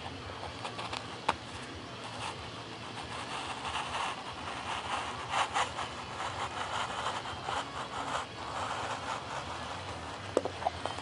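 X-Acto hobby knife slicing through a foam sheet laid on carpet: irregular scratchy strokes of the blade, with a couple of sharp clicks near the end.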